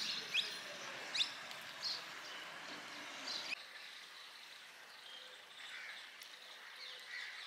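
Birds chirping over outdoor background noise: short, sharp, falling chirps about once a second, then the ambience drops suddenly about three and a half seconds in and fainter chirps carry on.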